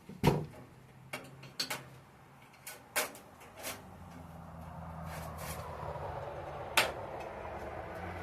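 A handful of sharp clacks and knocks, like utensils or tongs set down or knocked on hard surfaces, the loudest near the start and about seven seconds in. From about four seconds in, a steady hiss-like noise with a low hum builds up beneath them.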